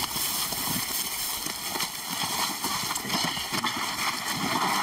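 Shuffling footsteps and rustling of several people moving through dry grass, with irregular knocks and handling noise as they carry a heavy load.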